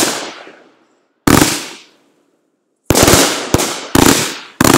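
Consumer ground fireworks going off in a loud, irregular series of about six sharp blasts, each fading over about half a second, with short gaps between.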